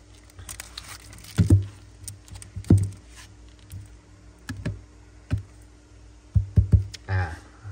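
Metal Zippo lighters being handled and set down on a hard surface, with about eight irregular knocks and clicks. Several come close together near the end.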